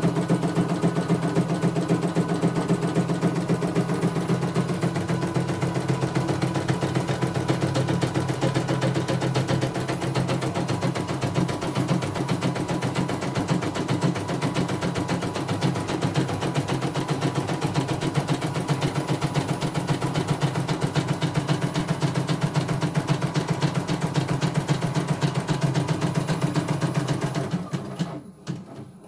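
CNY E900 computerised embroidery machine stitching a test design: a fast, steady needle clatter with a low motor hum, which stops shortly before the end. The machine is running smoothly, with no problems.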